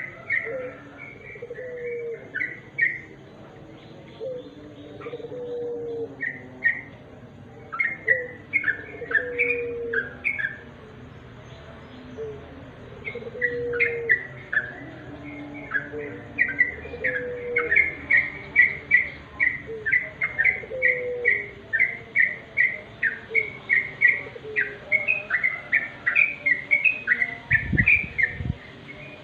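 Yellow-vented bulbul (trucukan) calling: phrases of short bubbly chirps, sparse at first and then a long fast run in the second half. A lower note repeats beneath the chirps every second or so, and a low thump comes near the end.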